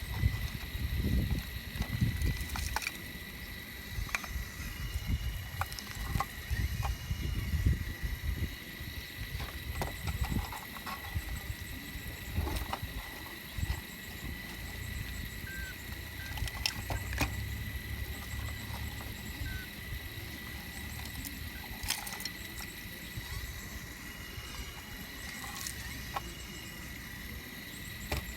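Caterpillar machine digging into shale: a low engine rumble, uneven at first and steadier later, with scattered sharp knocks of rock.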